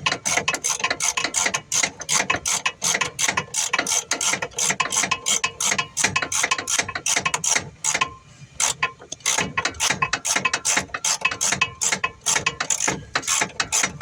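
Hand socket ratchet wrench clicking rapidly as it is worked back and forth on a nut behind a car's instrument cluster, with a short pause a little past halfway.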